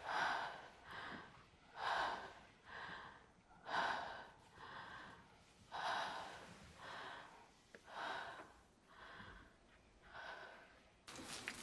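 A woman's quiet, quickened breathing, in and out about once a second.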